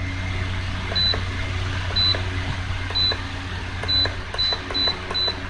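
Electric floor fan beeping as its timer button is pressed, seven short high beeps each with a faint button click. The first three come about a second apart and the rest more quickly. The fan motor hums steadily underneath.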